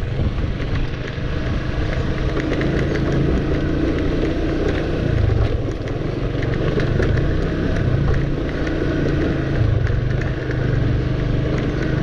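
Motorcycle engine running at a steady riding speed over a rough dirt and gravel lane, with a rumble of wind and road underneath. The engine note dips and picks up again about five seconds in.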